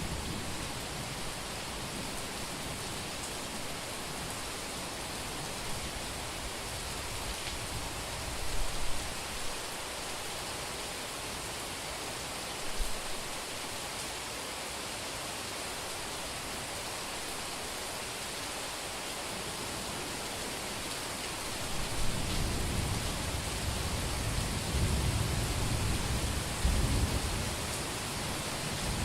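Heavy rain falling steadily on a street, with a low, irregular rumble of thunder building from about two-thirds of the way in.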